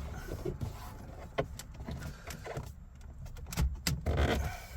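Plastic dashboard trim being prised off its clips with a screwdriver: a series of sharp clicks and scraping creaks as the panel works loose.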